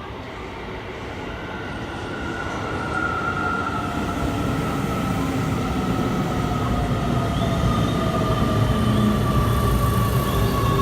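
Electric train approaching, growing steadily louder, with a rumble and a high whine that slowly falls in pitch.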